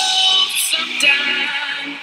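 Music playing: a song accompanying a dance-along warm-up.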